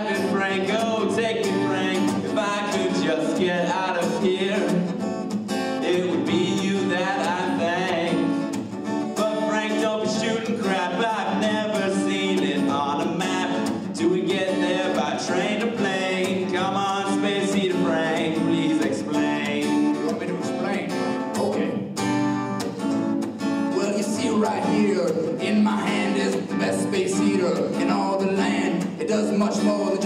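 Acoustic guitar strummed, with a man singing over it.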